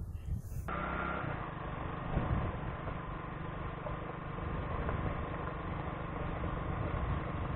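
A steady engine drone, dull and muffled, that starts abruptly just under a second in.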